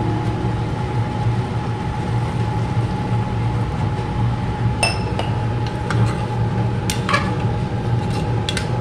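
A steel ladle clinking against the rim and sides of an aluminium pressure cooker while vegetables are stirred: one ringing clink about halfway through, then a few quick clinks near the end. A steady low hum runs underneath.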